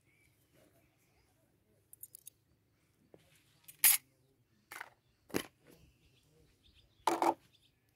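Camping gear being handled and unpacked by hand: a few short rustles and clicks, the loudest about four seconds in and another strong one near the end.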